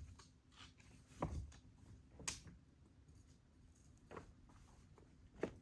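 Hiking footsteps picking over a rocky trail: a few irregular, faint knocks and scuffs of boots on loose rock, one sharp click about two seconds in.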